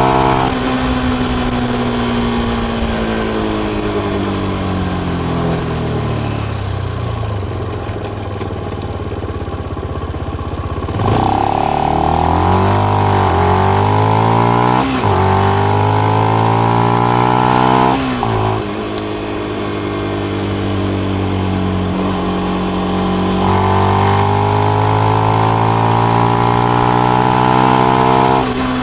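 Benelli BN125's single-cylinder 125 cc four-stroke engine through its stock exhaust with the dB killer fitted, first winding down off the throttle for about ten seconds. Then it is opened up sharply and revs rise and drop through a few quick gear changes before pulling steadily again, with a drop in revs near the end.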